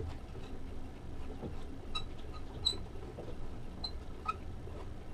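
Light metallic clicks and ticks from handling small wires and ring terminals at a radio's wiring connection, four or so short clicks with a slight ring, the sharpest near the middle. Faint low background noise lies under them.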